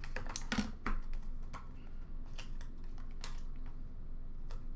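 Irregular clicks and taps of cardboard as an Upper Deck Clear Cut hockey card box is handled and its flap pulled open, a quick cluster in the first second and then scattered taps.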